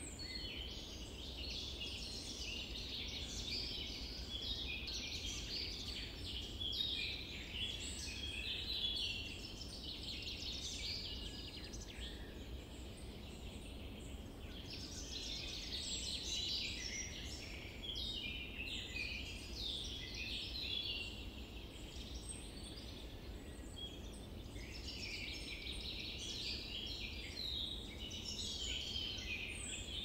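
Many birds calling and chattering together in dense, high-pitched waves, over a steady low background rumble.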